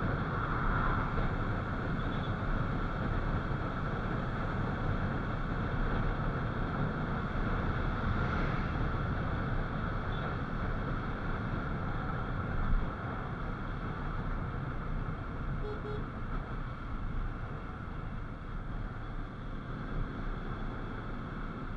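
Motorcycle riding at road speed, heard from the bike: a steady engine and wind rumble, with one brief sharp bump about halfway through.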